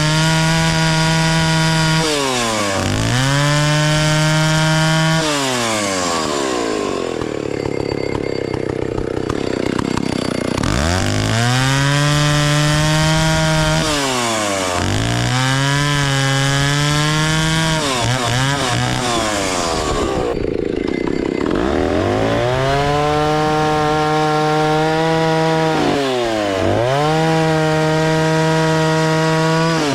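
Vintage Stihl 041 AV two-stroke chainsaw (about 61 cc) revved up and down repeatedly. In two stretches it is cutting wood: the engine tone drops away under the rasp of the chain in the cut.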